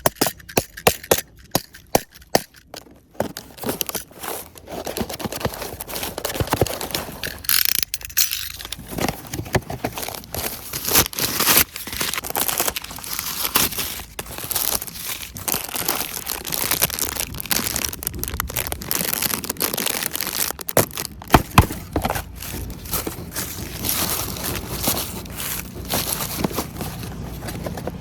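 Toy packaging being handled and opened: crinkling, tearing and scraping, with many sharp clicks, especially in the first few seconds.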